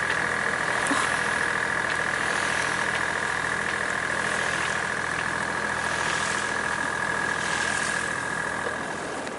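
Sailing yacht's engine running steadily as the boat motors along: a low engine hum with a steady high whine over it.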